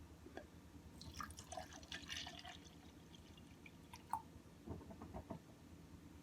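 Faint, scattered small clicks and drip-like ticks, clustered about a second in, with one sharper click around the four-second mark and a few more shortly after.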